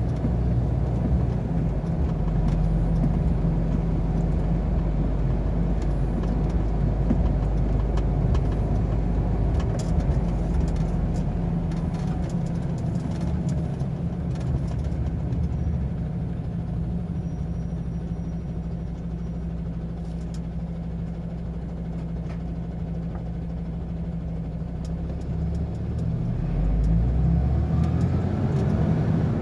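Truck engine running with road noise, heard from inside the cab while driving. The engine eases off for several seconds as the truck slows, then pulls harder again near the end with a rising tone.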